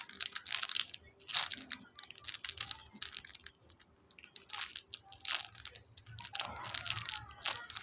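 A foam squishy being squeezed and handled close to the microphone: irregular soft crinkling, crunching and scratching.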